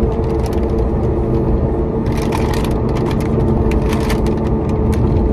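Steady engine and road rumble of a car heard from inside the cabin while driving, with scattered clicks and rustles of something being handled about two and four seconds in.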